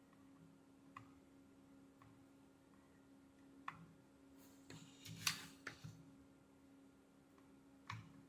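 Near silence with a steady low hum, broken by a few faint clicks and a short cluster of taps and scraping about five seconds in.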